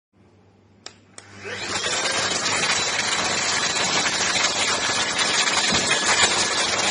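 Xton ST7000 cordless stick vacuum cleaner: two clicks of its switch about a second in, then the motor winds up and runs steadily with a loud rush of air and a thin high whine.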